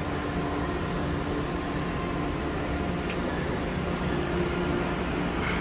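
Steady low rumble and hum of an enclosed railway station platform, with a faint high whine held throughout.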